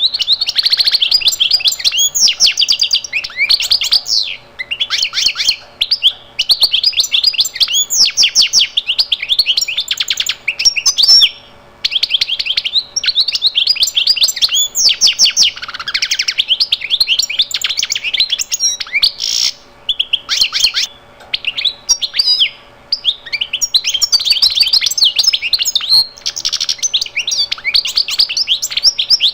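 Songbird singing: rapid runs of high chirps and trills lasting a second or three each, with short breaks between them.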